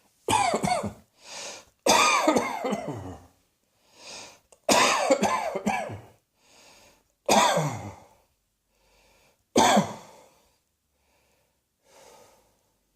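A person coughing: five loud bouts of coughing, each falling in pitch, with quieter breaths drawn in between.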